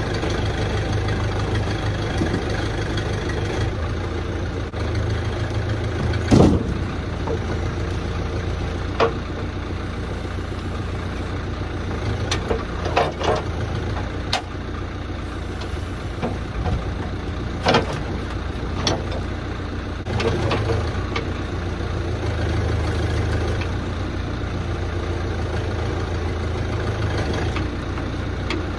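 An engine running steadily with a low rumble while logs are unloaded, broken by about eight sharp knocks of logs being handled, the loudest about six seconds in and others scattered through the middle.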